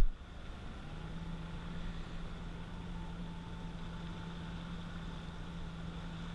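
Jet ski engine running at low speed: a steady hum that sets in about a second in, over a faint wash of water and air noise.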